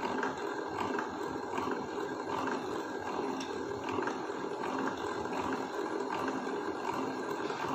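Hand-cranked centrifuge turning steadily: a continuous mechanical whir from its gears and spinning rotor head, with a faint regular pulse.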